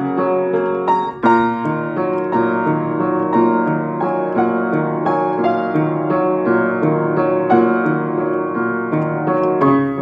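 Upright piano being played: notes and chords in both hands, struck about twice a second and left ringing, with a heavier chord about a second in.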